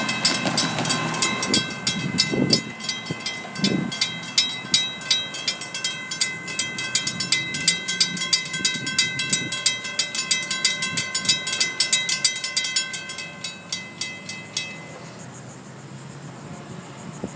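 Railroad grade-crossing bell ringing in fast, even strokes, cutting off near the end. A vehicle passes by early in the ringing.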